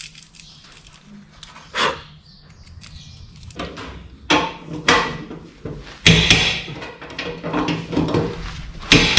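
Knocks and clatter of hand work on a vehicle's fuel tank and its mounts: a few separate sharp knocks, then busier clattering from about six seconds in.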